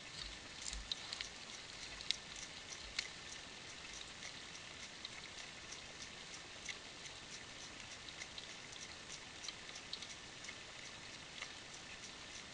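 Soft, irregular clicking and ticking, several a second, over a steady faint hiss: a deer licking and gnawing at a mineral block close to the microphone.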